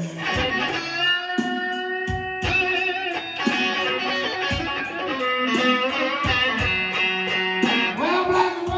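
Stratocaster-style electric guitar playing a slow blues lead fill, held and bent notes, over low thuds about once a second.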